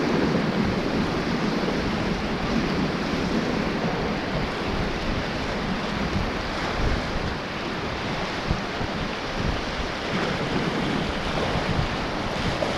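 River water rushing and splashing around an inflatable raft, a steady loud rush, with wind buffeting the microphone.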